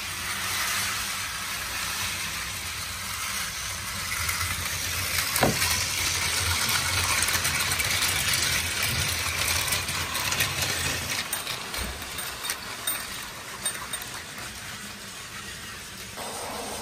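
Several battery-powered toy trains running on plastic track: a steady whirring of their small motors and gears with wheels rattling along the track, plus scattered clicks in the second half.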